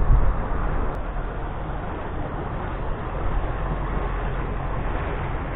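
Wind buffeting the microphone, strongest in the first second, over a steady outdoor rumble that includes a small motorboat's engine running as the boat approaches on the canal.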